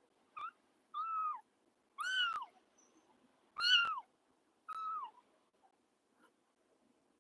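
Young kitten mewing five times in short, high calls, each falling in pitch at its end, the third and fourth the loudest.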